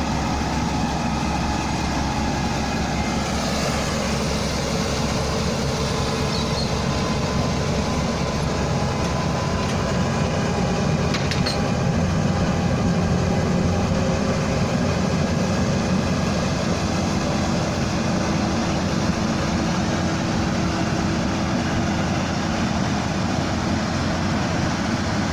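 Rice combine harvester running steadily as it harvests, its engine and threshing machinery making a constant drone.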